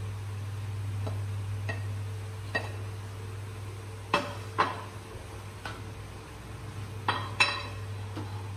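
A black slotted spatula scraping and knocking diced zucchini off a ceramic plate into a frying pan and stirring the vegetables, giving a series of light clinks and knocks, the loudest a pair about four seconds in and another pair about seven seconds in. A steady low hum runs underneath.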